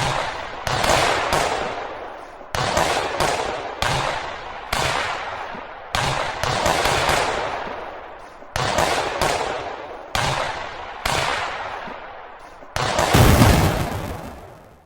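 Fireworks sound effect: a string of firework bursts, about one a second, each trailing off in a crackle, the loudest one near the end.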